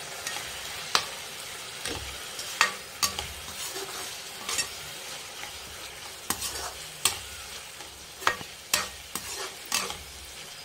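Minced meat sizzling as it fries in a kadai, still raw and giving off its own juices. It is stirred with a perforated steel spoon that scrapes and clicks against the pan about a dozen times at irregular intervals.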